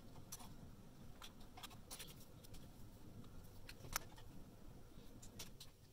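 Faint scattered clicks and taps of wires being handled and pressed into place inside a sheet-metal chassis, with one sharper click about four seconds in.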